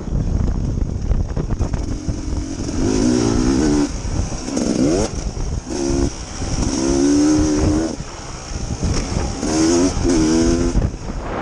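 Dirt bike engine revving up and easing off again and again, several short throttle bursts with the pitch rising and falling, over a rough low rumble.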